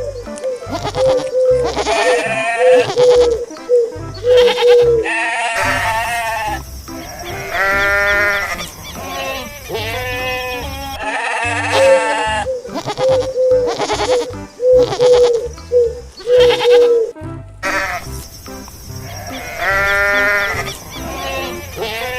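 Goats bleating several times over background music, which has a repeating run of short notes.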